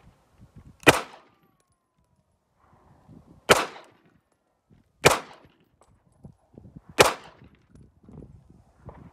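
Beretta 92FS 9mm pistol firing four single shots, spaced unevenly about one and a half to two and a half seconds apart, each with a short echo.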